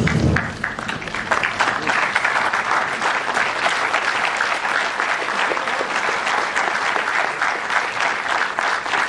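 Large audience applauding: many hands clapping in a dense, steady spread.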